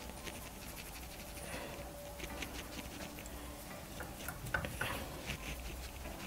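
Faint scratching and rustling of makeup being blended, with a few light clicks a little past the middle.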